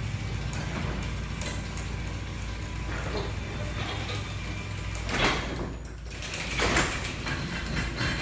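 Two electric garage doors running under their openers, a steady mechanical drone with the doors rattling along their tracks, and two louder swells of noise about five and nearly seven seconds in. The doors are closing onto obstructions in a test of the openers' safety auto-reverse.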